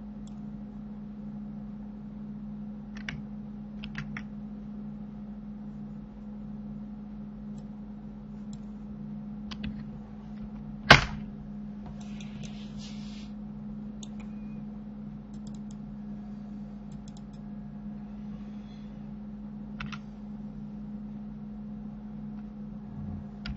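Scattered computer keyboard and mouse clicks, with one sharp, louder click about halfway through, over a steady low electrical hum.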